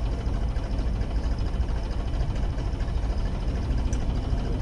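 Tractor's diesel engine running steadily under load, driving a water pump.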